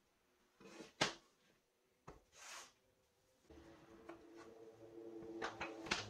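Wooden board and cut broom-handle pegs handled on a tabletop: several sharp wooden knocks and clicks, the loudest about a second in and a cluster near the end, with some light rubbing. A faint steady hum comes in about halfway.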